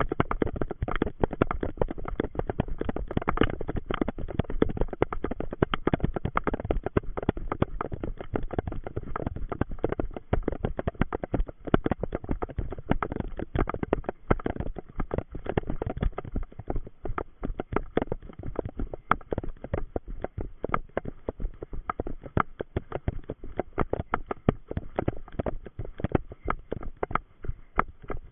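A runner's footfalls picked up by a body-worn camera that jolts with every stride: a rapid, uneven stream of thuds and knocks.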